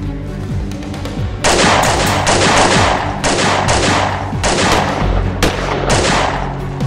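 Handgun gunfire in a shootout: a run of shots, about two a second, starting about a second and a half in, over a steady low music score.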